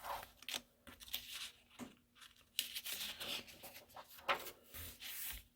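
Paper drawing sheets being handled and turned over, with irregular rustling and light crinkling.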